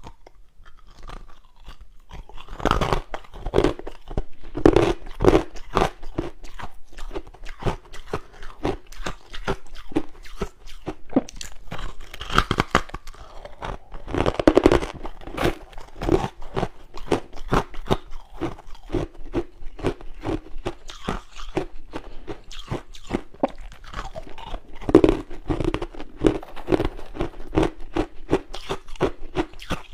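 Close-up crunching of freezer frost being bitten and chewed. Several heavier crunchy bites are each followed by runs of quick, regular chewing crunches.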